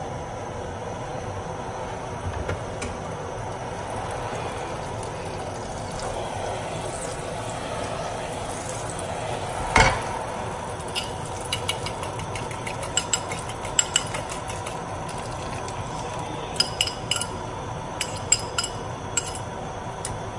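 Oil and butter sizzling steadily in a nonstick frying pan on a gas burner. A single knock sounds about ten seconds in, followed by scattered light clinks of a utensil against a ceramic bowl.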